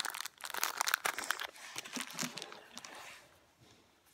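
Plastic packaging crinkling and crackling in the hands, dense for about a second and a half, then fading to faint rustling.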